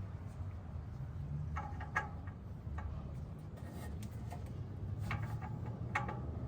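A few light clicks and knocks from tools and parts being handled during an oil change, the clearest about two seconds in and in a cluster near the end, over a low steady hum.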